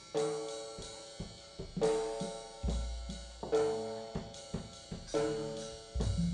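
Opening of a song on acoustic guitar: chords struck and left to ring out one after another, with drum and cymbal accents and a deep low hit about three seconds in and again near the end.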